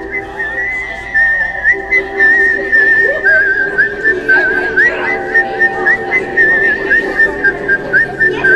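Background music: a high, warbling whistled melody over held chords, with a steady beat of about two pulses a second.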